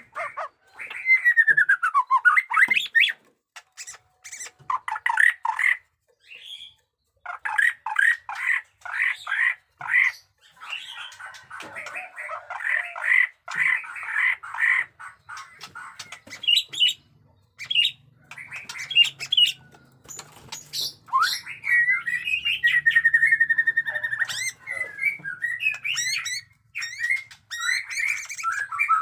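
White-rumped shama singing a fighting song: fast runs of harsh, rattling chatter ('batuk koral', 'muntah beling') mixed with whistled slurs that fall and rise, and a rapid trill about two-thirds of the way through, broken by short pauses.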